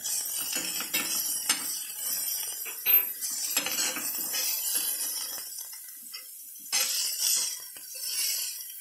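Metal spatula scraping and clinking against an iron kadai while stirring sliced onions and fennel seeds frying in oil. The scrapes come irregularly, with a light sizzle of the oil underneath.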